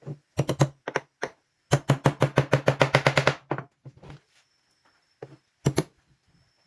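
Sharp knocks on wood: a few single knocks, then a fast run of about nine strikes a second for nearly two seconds, then a few more scattered knocks.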